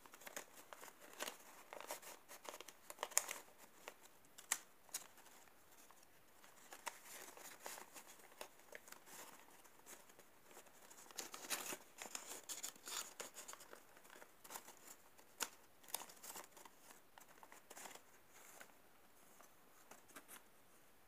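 Folded origami paper modules rustling and crackling as they are handled and slotted into one another: a faint run of crisp paper crinkles and small clicks, thinning out near the end.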